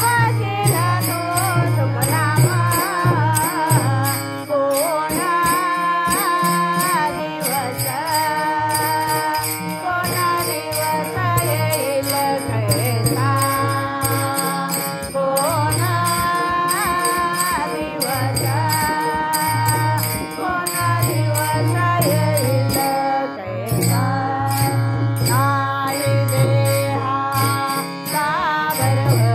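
Women singing a Marathi bhajan to Shiva, with small brass hand cymbals (taal) struck in a steady beat behind the voices.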